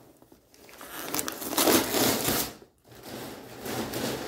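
Rustling and crinkling of toy packaging being handled, in two stretches with a brief pause between them.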